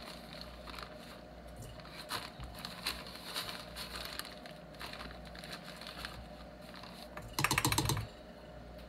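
Plastic bag crinkling and rustling as packed brown sugar is scooped into a measuring cup, with scattered small crackles. Near the end comes a short, louder rattle as the sugar is tipped from the cup into a stainless steel mixing bowl.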